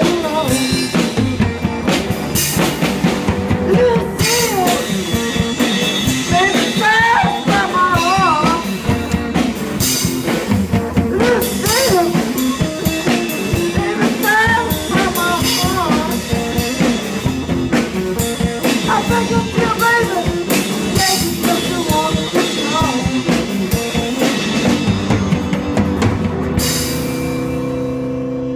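Live rock band: a semi-hollow electric guitar playing over a drum kit. About 26 seconds in the drums stop and the band holds a final chord that rings out.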